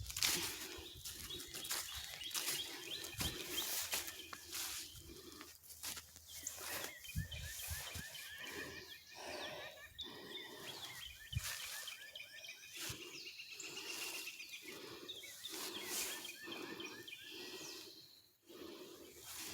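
Footsteps crunching through dry leaf litter at a steady walking pace, with small birds chirping in the background.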